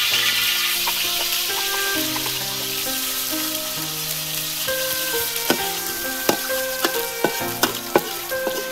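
Chopped garlic sizzling in hot oil in a steel wok, the sizzle loudest right at the start as it goes in and then easing off. From about halfway a metal spatula stirs it, scraping and knocking sharply against the wok.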